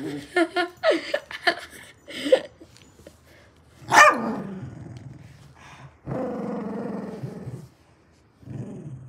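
Dog play-barking and growling: a quick run of short yaps, a loud bark about four seconds in, then a long low growl and a shorter one near the end.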